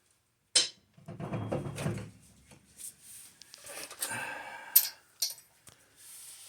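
A few sharp clicks and knocks with a short low rumble about a second in: metal parts being handled at a car's wheel while the car is let down on its jack.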